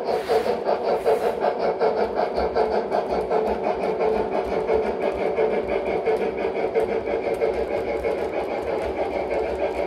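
Gauge 1 model steam locomotive and its train running along the track: a fast, even mechanical clatter. A short hiss comes in the first second.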